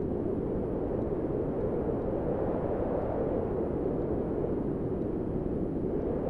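Steady low rumbling noise with no distinct events, cutting off abruptly at the end.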